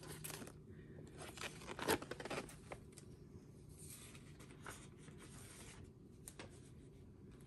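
Paper instruction sheets rustling and sliding into a plastic file folder by hand, a faint run of scattered crinkles, loudest about two seconds in.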